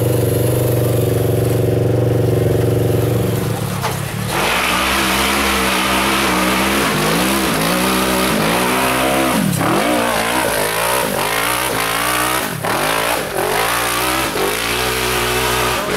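A 900cc-class side-by-side UTV engine holds a steady note for about four seconds. Then, after a cut, a UTV engine revs up and down again and again as it climbs a steep dirt hill.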